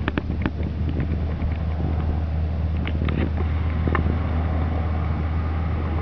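Steady low hum of an idling engine, with a few faint clicks scattered through.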